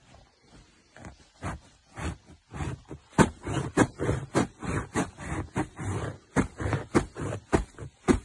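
Sneakered feet trampling on a bed: a run of soft thuds on the mattress, a few at first, then louder and quicker at about three a second from around three seconds in.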